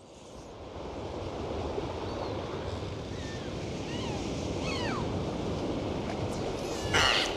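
Steady rushing outdoor noise that fades in over the first second or so, with a few faint short chirps about halfway through.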